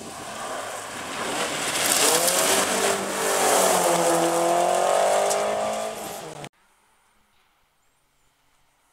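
Rally car engine at full throttle as the car passes close by, with tyre and road noise. The engine note climbs, dips once about three seconds in, then climbs again. The sound cuts off abruptly about six and a half seconds in, leaving only faint background.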